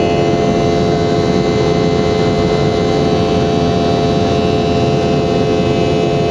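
Boeing 717-200's BR715 turbofan engines running steadily: a loud, even rumble with a constant whine of several steady tones on top.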